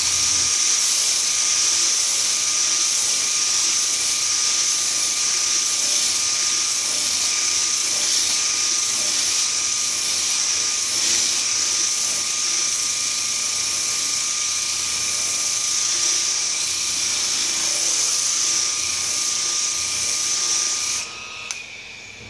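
Homemade hand sander driven by a quarter-horsepower washing-machine motor, its sandpaper disc sanding wood: a steady whine over the hiss of sanding. It stops near the end.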